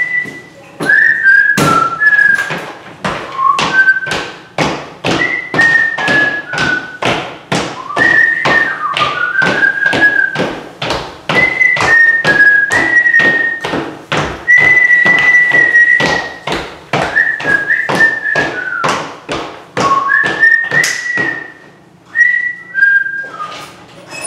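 A person whistling a tune over a steady beat of sharp taps, about three a second.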